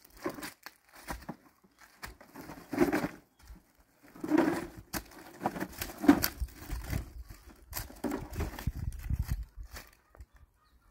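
Dry leaves rustling and crunching underfoot and in hand, and a plastic sack crinkling as things are gathered from the ground into it, in irregular bursts.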